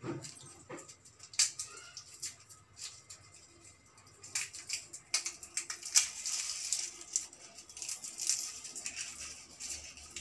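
Garlic cloves being peeled by hand: dry papery skins crackling and rustling, with scattered sharp little clicks, busiest a little past halfway.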